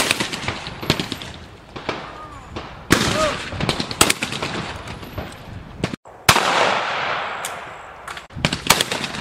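Shotguns firing at clay targets on a trap line: several loud, sharp shots at irregular intervals, each with a short echoing tail.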